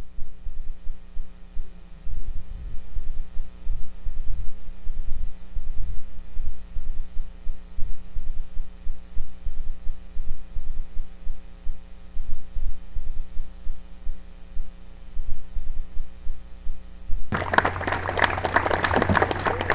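Low, irregular rumbling pulses and a steady electrical hum, then audience applause breaks out near the end and is the loudest sound.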